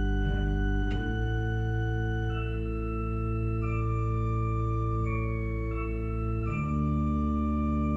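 Church pipe organ improvising in slow, sustained chords over deep bass notes, the harmony shifting about a second in and again near the end.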